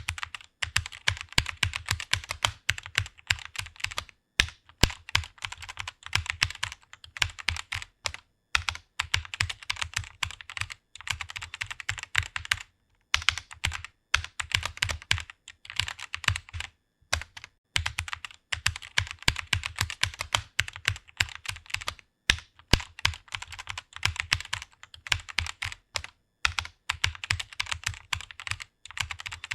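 Fast typing on a computer keyboard: rapid key clicks in long runs, broken by short pauses every few seconds.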